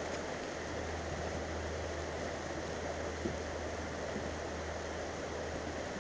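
Steady rushing background noise with a low hum underneath, and a faint tick about three seconds in.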